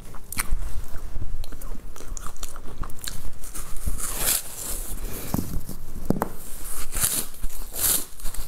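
A bundle of crisp rolled snack sticks bitten into and chewed close to a clip-on microphone: a run of dry, crackly crunches, loudest at a big bite about four seconds in and again near the end.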